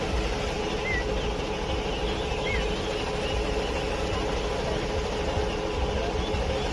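Steady vehicle engine rumble with a constant hum, as of traffic idling on a road, with a few short high chirps from small birds about a second and two and a half seconds in.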